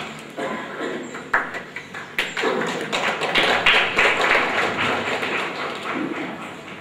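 Audience applauding, many quick claps merging into a steady patter that dies down toward the end.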